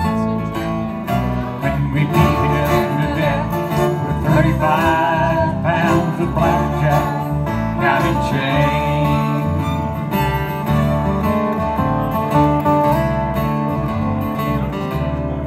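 Live bluegrass band playing an instrumental break over a stage PA: strummed acoustic guitars and bass under a fiddle, which carries a wavering lead line through the first half.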